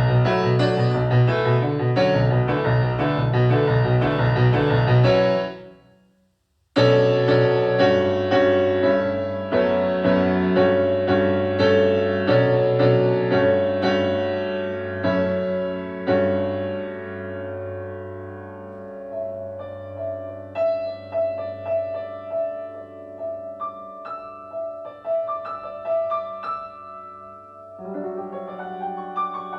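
Instrumental music led by keyboard: a rhythmic passage of piano-like notes breaks off about five seconds in, falls silent for about a second, then resumes abruptly with held chords that thin out into sparse, ringing notes.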